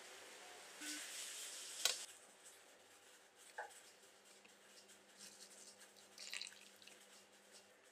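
Thin stream of hot water pouring and trickling faintly into a metal baking tray. About a second in there is a brief hiss, ending in a sharp click, which is the loudest moment.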